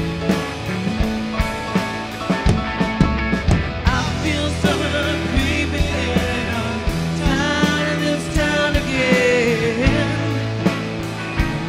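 Live rock band playing, with a man singing over a steady drum beat.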